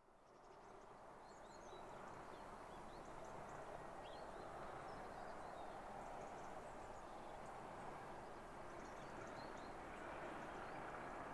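Birds chirping in short, scattered high calls over a steady background noise that fades in at the start and slowly grows a little louder.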